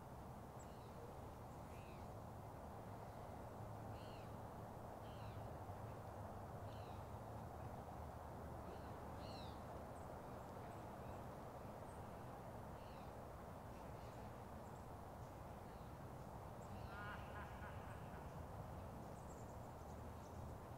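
Small birds chirping now and then in the trees, with one louder, longer call about seventeen seconds in, over a steady low background hum.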